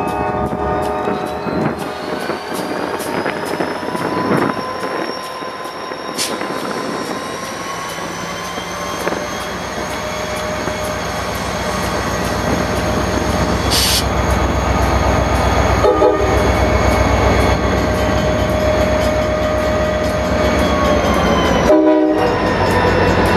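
Freight train rolling slowly past at close range, with sustained high metallic squealing from the wheels that drifts slowly in pitch, over a low rumble that grows toward the end. A short hiss of air comes about fourteen seconds in.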